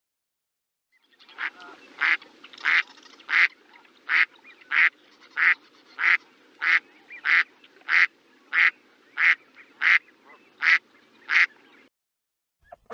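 A duck quacking over and over at an even pace, about one and a half quacks a second, some sixteen in a row. The quacks begin about a second in and stop near the end.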